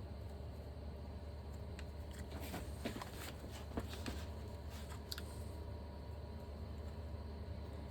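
Faint scattered clicks and taps of hand work on a motorcycle brake caliper as a piston is being pressed into its bore, over a steady low hum.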